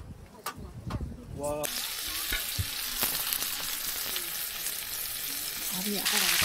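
Food sizzling in a hot pan, a steady hiss that sets in abruptly about a second and a half in.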